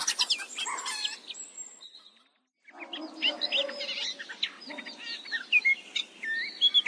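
Farm morning ambience: songbirds chirping and trilling, with hens clucking, over the steady hush of a small brook. About two seconds in, everything drops out to near silence for about half a second, then starts again.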